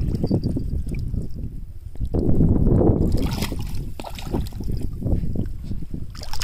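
Hooked mahseer thrashing at the water's surface, with splashes about three seconds in and near the end, over gusty wind noise on the microphone.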